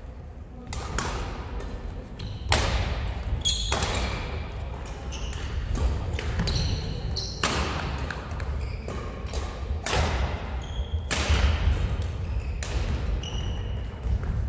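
Badminton rally: racket strings hitting the shuttlecock with a sharp crack about once every second or so, between them short high shoe squeaks and thudding footsteps on the hardwood court floor.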